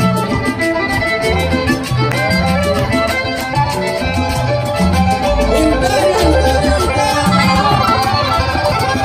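Live Latin dance band playing an instrumental passage: a changing bass line under steady percussion and a melody.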